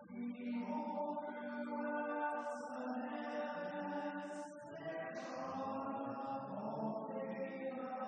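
Slow hymn singing, the voices holding long sustained notes and moving from one pitch to the next between phrases, with a short break for breath a little past halfway.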